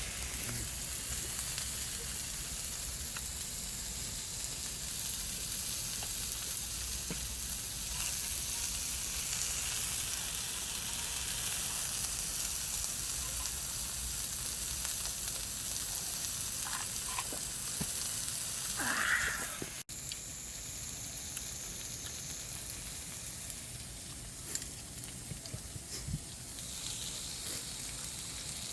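Food sizzling as it fries in a hot pan, a steady hiss. It drops slightly and changes character at an abrupt break about two-thirds of the way through.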